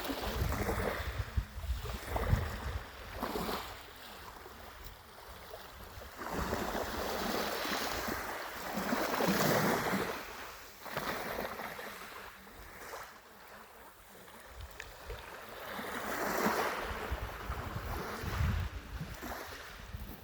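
Sea waves washing onto the shore, swelling and fading every few seconds, with wind rumbling on the microphone.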